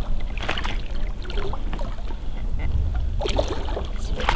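Water splashing and sloshing against a float tube as a large netted rainbow trout is handled at its side, with sharper splashes about half a second and about three seconds in.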